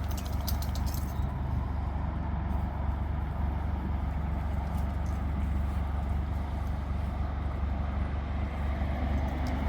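Steady low background rumble, with a short patter of light clicks just under a second in.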